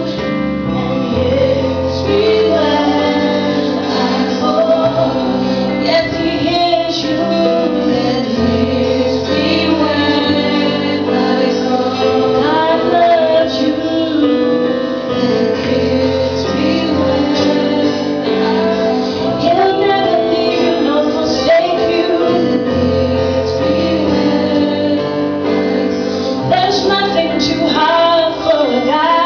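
Music: a woman singing a melody over sustained instrumental chords, with long low bass notes that change every few seconds.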